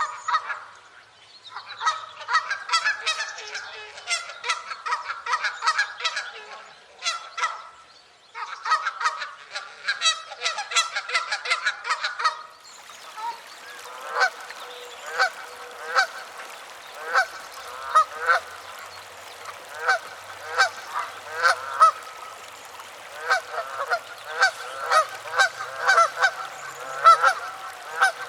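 Geese honking: many short calls in quick succession, several birds overlapping. About twelve seconds in the sound changes to a different recording with a steady hiss behind it, and the honks go on at a more even pace.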